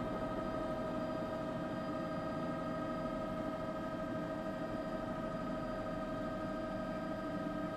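Steady, unchanging machine-like hum with a constant whine and a low rumble underneath.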